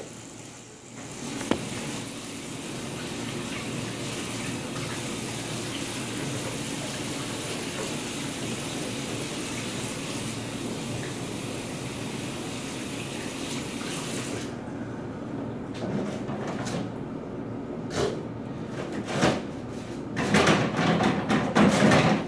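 Bathroom sink faucet running steadily while hands are washed, stopping about fourteen seconds in. A few short sharp rustles and tears follow as paper towel is pulled from a wall dispenser.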